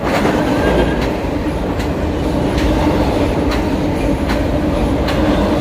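A train passing loudly, with a steady rumbling hum and the wheels clicking over rail joints about once a second.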